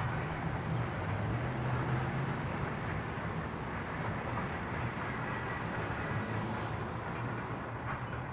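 Electric interurban train running on track, a steady rumble with a low hum underneath.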